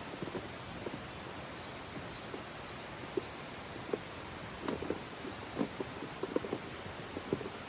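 Wood campfire burning, with irregular small crackles and pops over a low steady hiss; the crackles come thicker in the second half.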